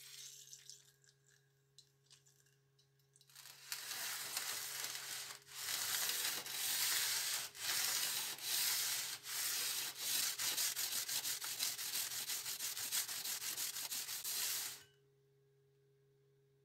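A short spray hiss of WD-40 onto the sandpaper, then the steel point of an old farm ripping tine rubbed back and forth by hand on oiled 80-grit sandpaper: a rasping scrape with each stroke. The strokes speed up over the last few seconds and stop shortly before the end.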